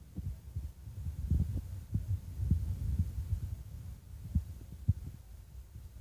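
Wind buffeting the microphone: an irregular low rumble with uneven thumps, strongest in gusts near the middle and with two sharp knocks near the end.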